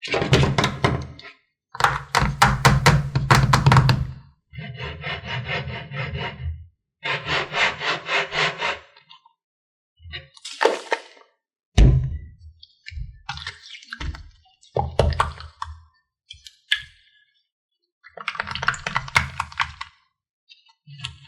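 Slime being squished and worked by hand, crackling and popping with rapid clicks. The clicks come in bursts of one to two seconds with short pauses, longer runs first and shorter, scattered ones later.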